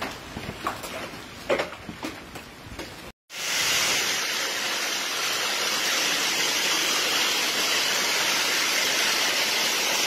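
Hail and rain falling, with a few scattered sharp ticks in the first three seconds. After a brief cut, a steady, loud, dense hiss of torrential rain mixed with hail pouring onto pavement takes over.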